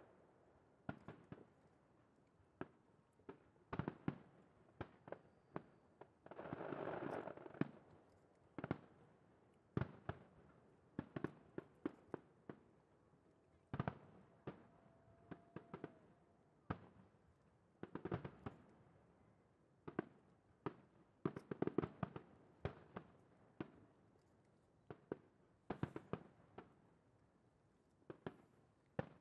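Fireworks display: aerial shells bursting in irregular sharp bangs, one to several a second and sometimes in quick clusters, each with a short echoing tail. A denser noisy stretch of about a second comes early on.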